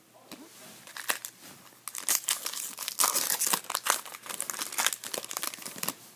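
A trading-card pack wrapper being torn open and crumpled, a dense crackling and crinkling that builds about a second in and peaks in the middle.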